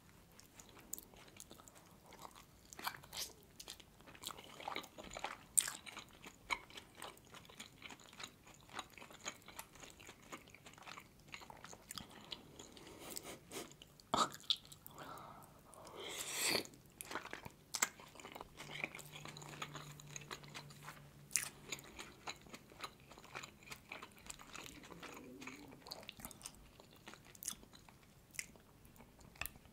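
Close-miked chewing and biting of steamed manti (meat dumplings): soft, wet mouth sounds with many small clicks.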